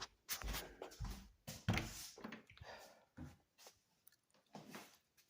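Irregular soft knocks and rustles of handling and movement, busier in the first three seconds, then sparse.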